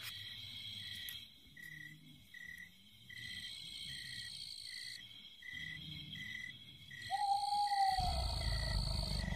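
Night ambience of crickets: a steady high trill with a short chirp repeating about every half second. About seven seconds in a single owl-like hoot sounds, falling slightly in pitch, and a louder low rumble starts just after it.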